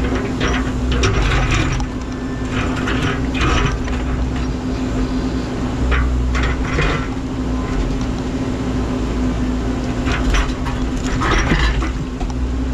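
Menzi Muck spider excavator at work: its engine runs steadily with a constant hum, under repeated short scraping and clattering bursts from the machine handling stones.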